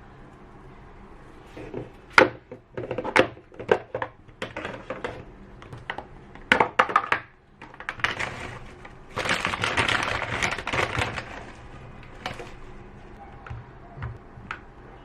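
Handling sounds: a run of sharp clicks and knocks, then about three seconds of noise, then a few scattered ticks.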